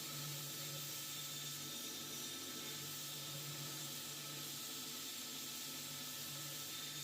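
Steady faint hiss with a low, even hum underneath; no distinct strikes or other events.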